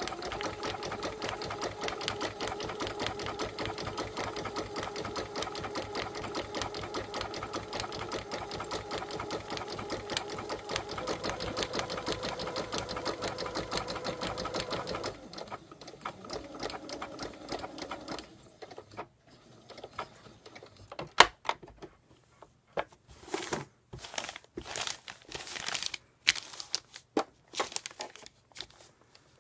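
Domestic sewing machine stitching felt letter appliqués onto thin fabric: it runs fast and steady for about fifteen seconds, then slows, and near the end goes stitch by stitch in short runs and single clicks with pauses between them.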